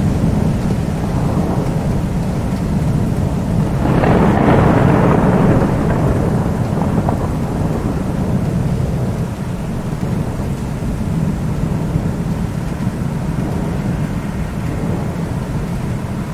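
Thunderstorm: steady rain under continuous low rumbling thunder. About four seconds in, a louder peal of thunder swells and rolls away over a couple of seconds.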